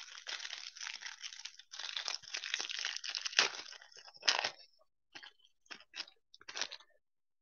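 Crinkling and tearing of a Donruss Optic trading-card pack wrapper being opened and handled, dense for about four and a half seconds, then a few scattered crackles.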